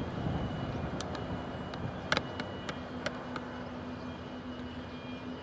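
Low, steady drone of an inter-island ferry's engines coming in toward the pier, with a handful of sharp clicks, the loudest about two seconds in, and a steady hum that joins about halfway through.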